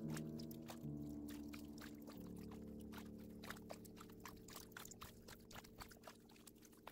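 Soft background music, its held notes fading away, over many small irregular drips and trickles of water off a kayak paddle as it is stroked through calm water.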